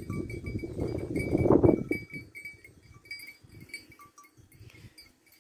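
A neck bell on grazing livestock clinking irregularly in short, light rings. A low rustling rumble is loudest during the first two seconds, then fades.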